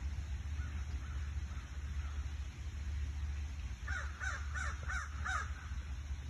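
A bird calling five short times in quick succession, about four seconds in, over a steady low rumble.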